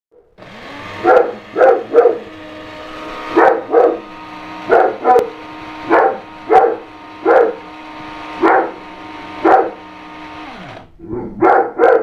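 Electric coffee grinder running with a steady whir, while a dog barks at it again and again in short loud barks, often in pairs. The grinder winds down near the end, and the dog gives three more barks after it stops.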